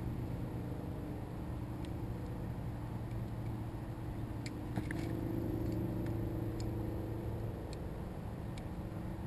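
Steady low hum of distant engine noise that swells a little about five seconds in, with a few faint ticks.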